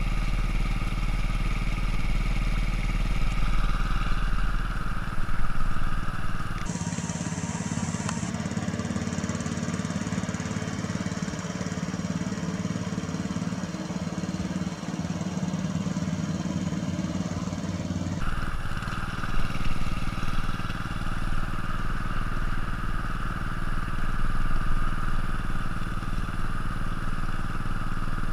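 Small gas engine with a recoil starter pushing a homemade PVC boat, running steadily at a constant speed. It is heard up close, then from farther off between about 7 and 18 seconds in, then up close again.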